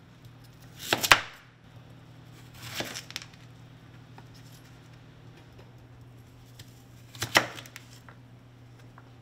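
Chef's knife chopping through raw sweet potato onto a plastic cutting board: three sharp chops, about a second in, near three seconds and about seven seconds in, the first the loudest. A faint steady low hum runs underneath.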